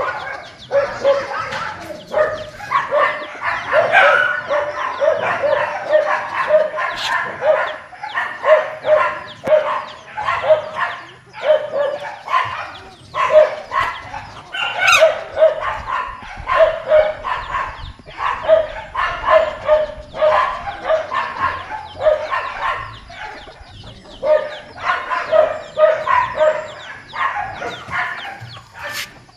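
A flock of chickens calling at feeding time, many short overlapping clucks and squawks throughout.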